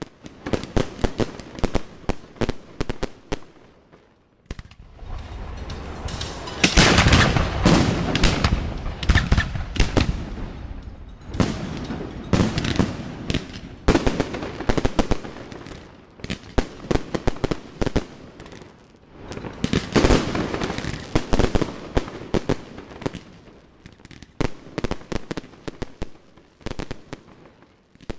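Fireworks display: a rapid series of bangs from bursting aerial shells mixed with crackling, heaviest in two dense stretches, about a quarter of the way in and again about two-thirds through.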